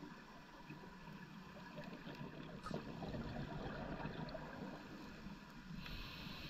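Scuba diver breathing through a regulator underwater: a crackling, bubbling exhale swells through the middle, and the hiss of the next inhale starts near the end.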